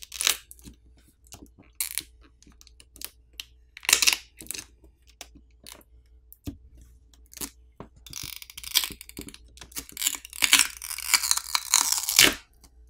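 A smartphone battery's adhesive being peeled away with its pull tab. First come scattered crackles and ticks. Then, in the second half, there is a dense crackling tear lasting about four seconds as the adhesive lets go of the battery.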